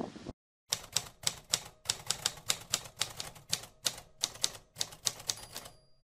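Typewriter sound effect: a mechanical typewriter's keys striking one after another, about four keystrokes a second, as a title is typed out letter by letter, with a faint high tone near the end.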